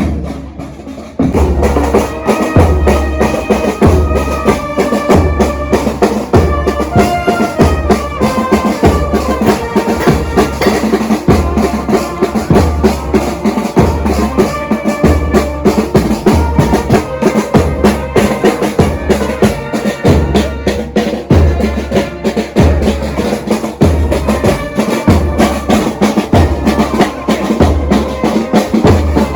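A band playing a march-like tune with drums: a bass drum beats about once a second under snare drum and a melody of stepping notes. The full band comes in loudly about a second in.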